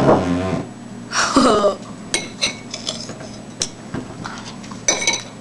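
A girl's short wordless vocal sounds, then a quick series of sharp clinks and taps with a slight ring, and one more clink near the end.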